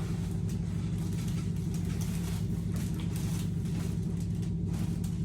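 Steady low hum with several evenly spaced overtones, unchanging throughout.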